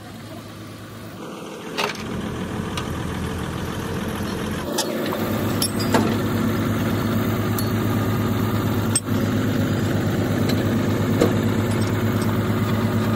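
An engine idling steadily, getting louder over the first few seconds, with several sharp knocks over it.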